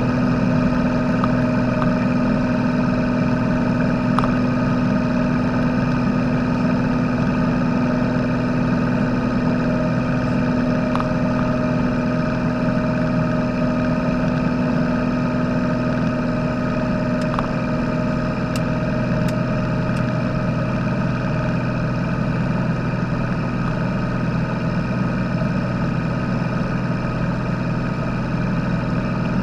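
Piper PA-46-350P Malibu Mirage's turbocharged six-cylinder Lycoming piston engine and propeller droning steadily, heard inside the cockpit during the climb after takeoff.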